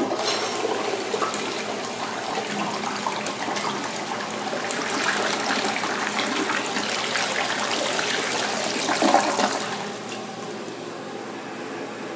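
Crane Athens tank toilet flushing: water rushing and swirling down the bowl for about ten seconds, then dropping to a quieter steady hiss.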